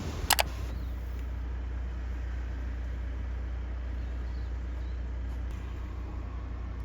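Car driving, a steady low rumble, after two sharp clicks about a third of a second in.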